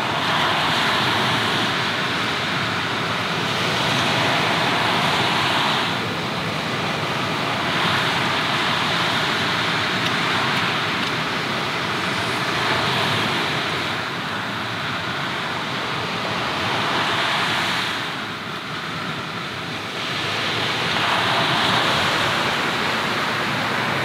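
Sea waves washing onto the shore: a steady rush that swells and eases every several seconds.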